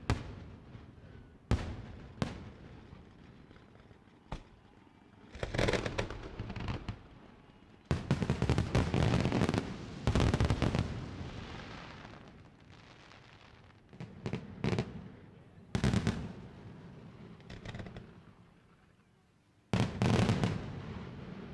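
Fireworks display: shells bursting in irregular sharp bangs, some in rapid clusters that echo and die away, with short lulls between; the densest and loudest volleys come about halfway through and again near the end.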